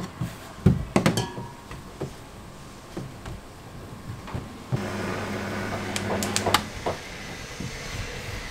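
A rolling pin knocks several times on a steel counter in the first second or so. Then, about halfway through, an electric dough sheeter's motor starts and runs with a steady hum for about two seconds, with a few clicks, and stops.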